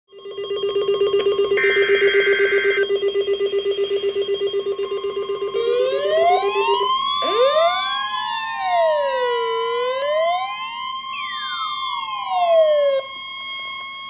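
Several weather-alert radio receivers sounding their alarms at once: a steady alarm tone under a fast-pulsing beep, joined about five seconds in by siren-like wails that sweep up and down at different pitches. The wails break off about a second before the end.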